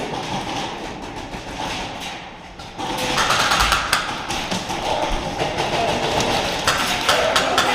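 Airsoft gameplay from the player's camera: rustling and knocking of gear and footsteps, with a run of sharp clicks and cracks from about three seconds in, densest near the end, typical of airsoft guns firing and BBs striking.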